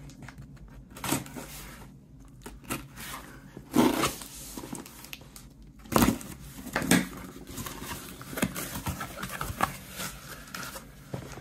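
Cardboard shipping box handled and opened by hand: several sharp knocks as it is turned over and bumped on the desk, with rustling and scraping as its flaps are pulled open.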